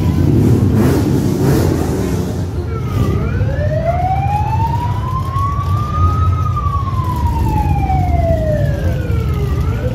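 A siren wailing: one slow rise in pitch starting about three seconds in, then a slow fall, turning up again near the end, over a steady low rumble.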